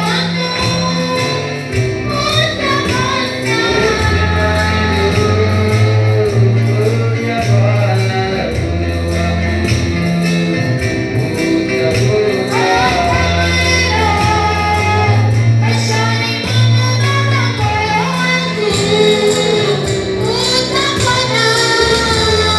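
Gospel worship song played on a Yamaha electronic keyboard, with sustained bass notes and an accompanying rhythm, and a voice singing the melody over it.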